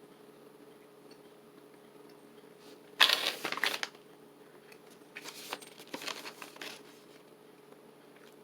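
Plastic jerky snack pouch crinkling as it is handled and opened, loudest about three seconds in, then softer rustling a little later, over a faint steady hum.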